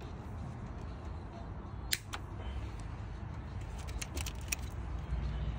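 A few sharp metallic clicks and clinks of hand tools working on the exposed camshafts and timing chain of a Nissan Micra K11 engine: one loud click about two seconds in and a quick cluster around four seconds in, over a low steady background rumble.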